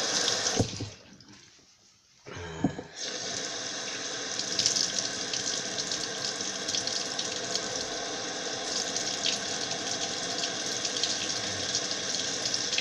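Bathroom sink tap running steadily, water splashing as hair is wetted under it; it starts about three seconds in, after a brief bump and a moment of near silence.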